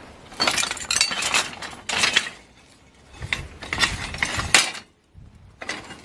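Rusted scrap iron, coil springs, steel wire rope and flat bar, clinking and rattling as a gloved hand shifts pieces around in the pile. The noise comes in several separate bursts, about four, with short lulls between them.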